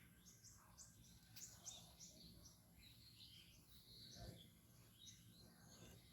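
Faint small-bird chirps, many short high notes scattered throughout, over a low steady background hum, with one soft low thump about four seconds in.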